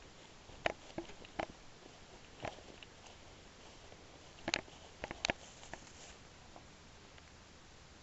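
Footsteps through grass: scattered short, irregular crunches and swishes that die away after about six seconds.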